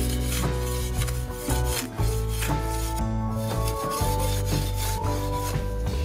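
Small metal spade scraping and chopping into soil in repeated quick strokes, over background music with a steady bass line.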